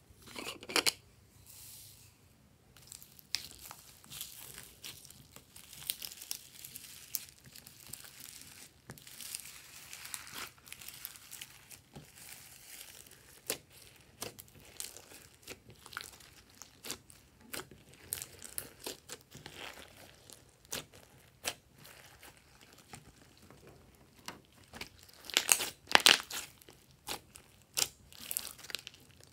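Hands pressing and kneading glossy slime full of foam beads and sequins: a running series of sticky clicks, pops and crackles, with a louder, denser burst of crackling about 25 seconds in.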